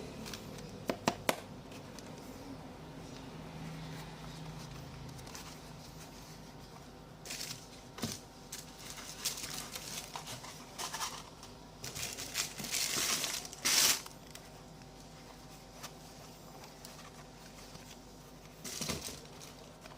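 Packaging being handled: crinkling and rustling in irregular bursts, loudest shortly after the middle, with a few sharp clicks about a second in.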